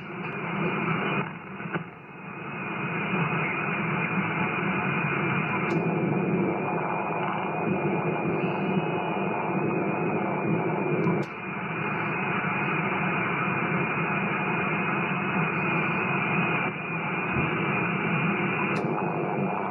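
Shortwave transceiver receiving on 40 m in lower sideband: a steady hiss of band noise and interference (QRM) from the receiver's speaker. A few sharp clicks come as the antenna is switched between the quad and the yagi, and the noise level changes at the switches, dropping noticeably at one about eleven seconds in.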